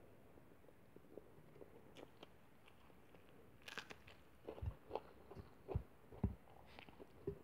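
Close-up eating sounds: a crisp bite into a raw green vegetable about three and a half seconds in, then chewing heard as a run of short clicks and low thumps.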